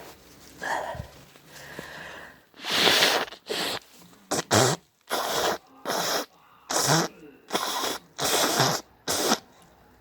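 A person forcing air hard through the nose in a run of about ten short, loud, breathy bursts, each under a second long and coming in quick succession, after a few softer breaths in the first couple of seconds. It is an itchy nose irritated by hay fever or a cold.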